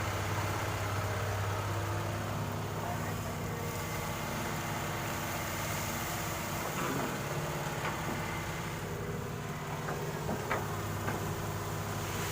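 Excavator's diesel engine running steadily, with a few short knocks in the second half.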